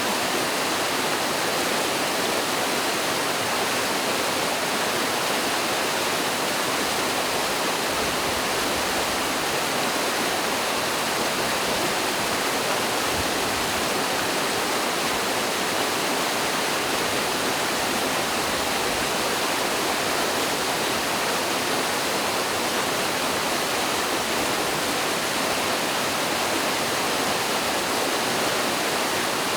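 Mountain stream rushing over rocks and a small waterfall: a steady, even rush of water.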